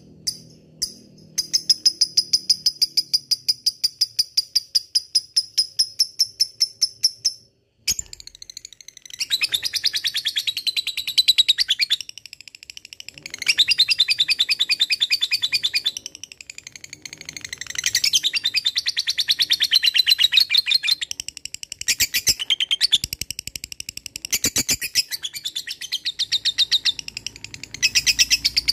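Lovebird giving its long 'ngekek' chatter: runs of rapid, evenly repeated sharp high chirps, several seconds at a stretch, in a series of bursts with short breaks between.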